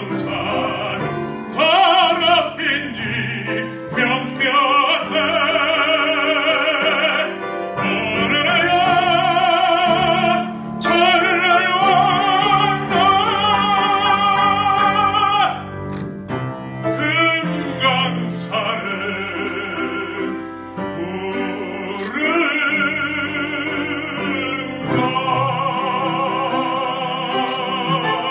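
A man singing in an operatic style, holding long notes with a wide vibrato, over piano accompaniment.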